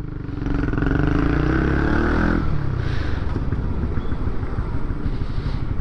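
Honda CB150R motorcycle's single-cylinder engine accelerating, its pitch rising for about two seconds, then dropping away about two and a half seconds in, leaving rough engine and wind noise.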